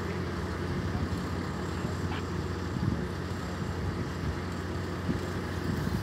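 Heavy equipment engine running steadily, a low, even drone.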